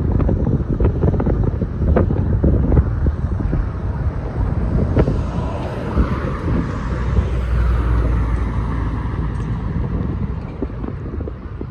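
Wind buffeting the microphone over a low rumble of road traffic at a railroad crossing, with a few sharp knocks and a vehicle swelling past about halfway through.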